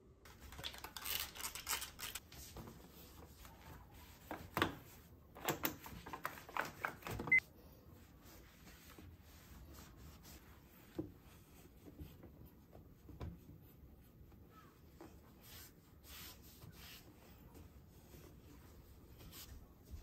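Oven racks and trays being slid back into a built-in oven, with a run of sharp metal clicks and clatters over the first seven seconds or so. After that, faint rubbing and small clicks as a cloth wipes the oven's stainless-steel front.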